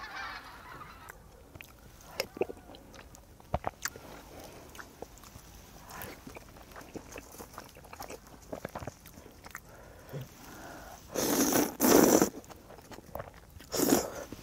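Close-up eating sounds: small clicks and smacks of chewing rabokki, then two loud slurps of ramen noodles near the end, the first lasting about a second and the second shorter.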